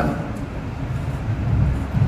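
A low, steady rumble with a fainter hiss above it.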